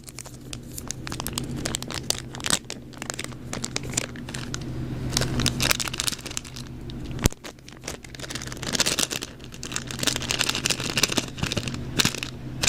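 Product packaging being opened by hand: irregular crinkling, rustling and tearing with small clicks, and one sharp knock about seven seconds in.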